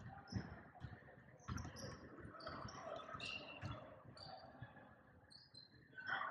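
Basketball shoes squeaking sharply and repeatedly on a hardwood gym court, with a few dull thuds among them.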